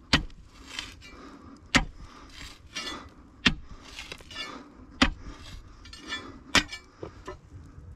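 A steel digging bar striking into hard earth and rock, five sharp metallic clinks about a second and a half apart, with quieter scraping and crumbling of loosened soil between the strikes.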